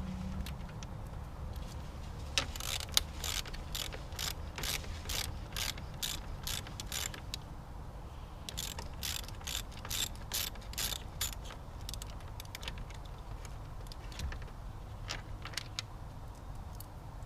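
Hand socket ratchet clicking in runs of strokes, about two to three clicks a second, as a 10 mm bolt is worked loose. The runs pause briefly and end with a few scattered clicks.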